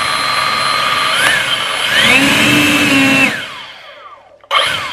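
EGO LB7654 56-volt cordless leaf blower running: the fan's steady whine climbs to a higher speed about two seconds in. Then the blower shuts off and winds down to near silence, and starts up again abruptly near the end.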